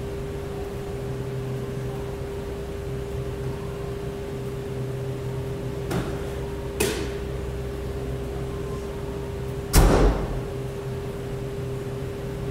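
Steady machine hum with a constant tone, broken by two sharp knocks about six and seven seconds in and a heavier, deeper thud about ten seconds in, from work on a car.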